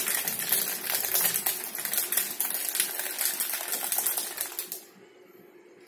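Milkshake drink shaker being shaken hard by hand: a fast, dense rattle that stops abruptly about five seconds in.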